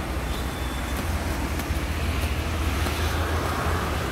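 Steady low rumble of highway traffic passing by.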